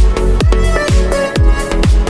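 Background electronic dance music with a steady beat, a kick drum about twice a second under sustained synth notes.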